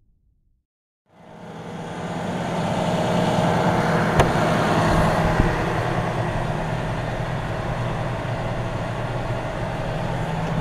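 John Deere 6215R tractor's six-cylinder diesel engine running steadily, heard inside the cab, fading in after about a second of silence. A brief click sounds about four seconds in.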